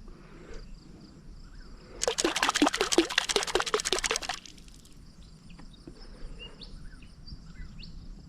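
A rapid flurry of water splashing for about two seconds, a caught fish thrashing in the water, over a faint steady chirring of insects.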